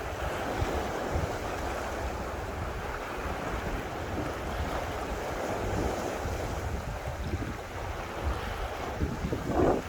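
Wind buffeting the microphone, an uneven low rumble over a steady rushing noise, with a brief louder gust near the end.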